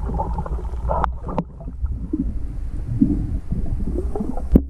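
Muffled underwater water noise picked up by a camera's microphone under water: a steady low rumble with gurgling swirls, and a few sharp clicks or knocks, the loudest near the end.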